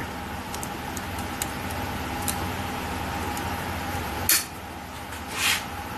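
Faint metal ticks and two short scrapes as hand tools work a brake caliper's pad-retaining pin, bending it over, over a steady shop hum.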